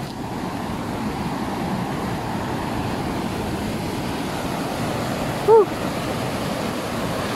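Steady rushing of a waterfall. About five and a half seconds in comes one short, loud pitched call that rises and falls.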